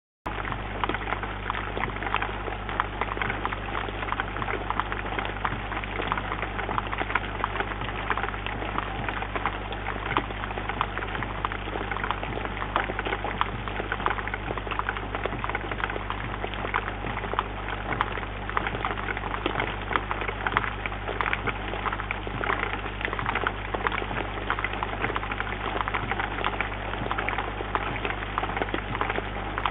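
Steady rain, a dense patter of close drops, picked up by a microphone in a bird feeder, with a steady low electrical hum underneath. The sound cuts in abruptly at the very start.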